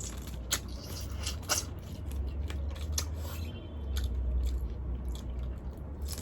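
Eating boiled crab: shell cracking and crunching, with irregular sharp clicks and chewing, over a low steady hum.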